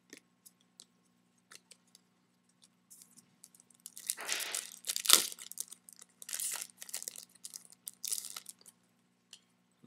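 A foil trading-card pack wrapper being torn open and crinkled, with a sharp snap near the middle. Light ticks of cards being handled come before it.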